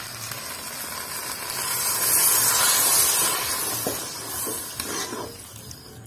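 Water poured from a jug into a hot kadai of fried masala and potatoes, sizzling and hissing as it hits the hot pan. The hiss swells to its loudest two to three seconds in, then dies down near the end. This is the water being added to the fried masala to start the curry's gravy.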